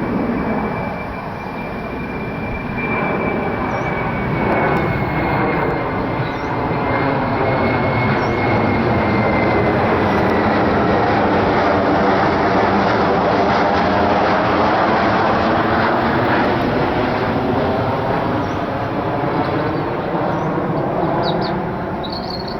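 Boeing 737-800 jet engines passing by, the noise swelling to a peak midway and then fading. A high fan whine drops slightly in pitch partway through.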